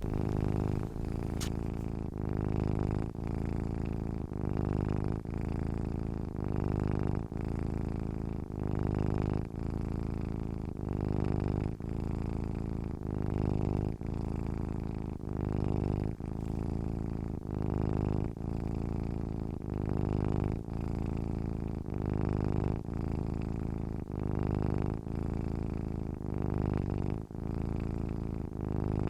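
Domestic cat purring close up: a continuous low, buzzing rumble that swells and dips in a steady rhythm, about one pulse a second, with each breath in and out.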